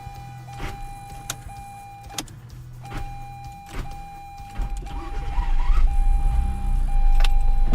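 In the car cabin, a steady electronic chime tone repeats with short breaks, along with a few clicks. About halfway through, a loud low rumble begins as the 2004 Mazda 6's 3.0 V6 is started with the new starter, and it carries on. The owner takes the sound of these start attempts as a sign of a chewed-up flywheel.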